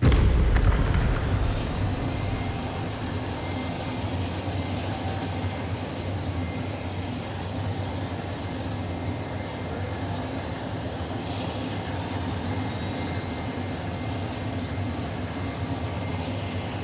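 A sudden loud hit that settles into a steady, dense rumbling noise.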